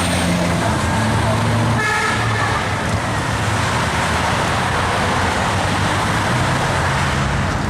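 Heavy interstate traffic passing below the overpass: a steady wash of tyre and engine noise. A car horn honks briefly about two seconds in.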